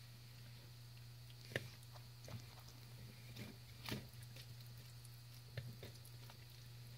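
A tegu biting and chewing egg and salmon: a handful of faint, sharp wet clicks and snaps from its jaws, the loudest about a second and a half in and about four seconds in, over a steady low hum.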